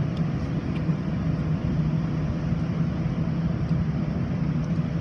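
Steady city street traffic noise with a constant low hum; no single event stands out.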